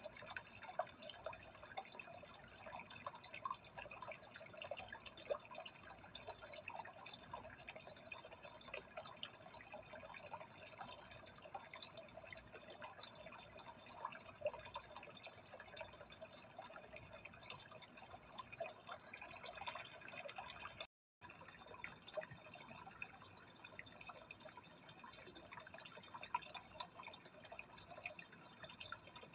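Faint, steady trickling of aquarium water, made of many small drips and splashes. It cuts out briefly about two-thirds of the way in.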